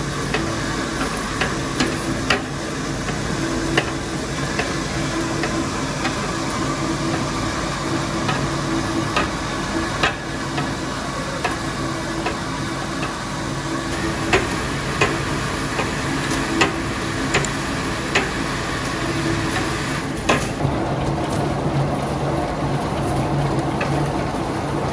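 Steady factory machinery noise with a low hum, with sharp metallic clicks and knocks scattered through it.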